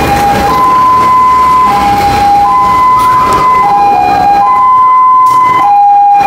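Two-tone electronic alarm sounding loud and steady. It is a hi-lo wail that switches between a higher and a lower pitch about once a second.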